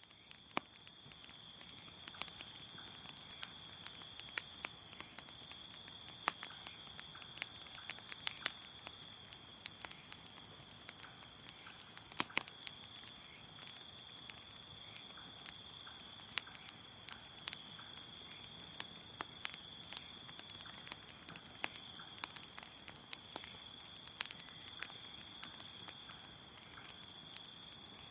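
Crickets chirping in a steady high trill, with the irregular sharp pops and crackles of a wood bonfire scattered through it. The sound fades in over the first two seconds.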